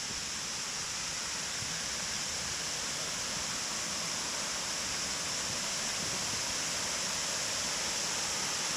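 Water falling over a mill dam: a steady rushing hiss that grows slightly louder, as if drawing nearer to the waterfall.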